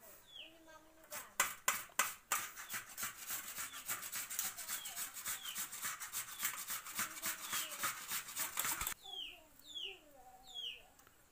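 A potato being grated on a flat metal hand grater over a steel plate: rapid, even rasping strokes that stop about nine seconds in. Birds chirp in the background, clearer once the grating stops.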